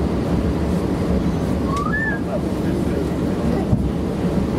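Steady low rumble of a train running slowly over siding track, heard from inside the carriage.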